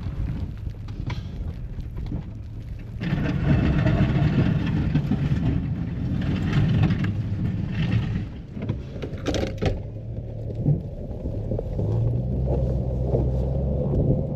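Pickup truck engine running, louder for about five seconds a few seconds in, with a sharp knock about nine and a half seconds in, then settling to a steady hum.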